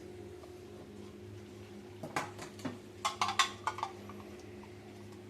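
Light clicks and clinks of small objects being handled, in two short clusters about two seconds in and again around three seconds in, over a steady low hum.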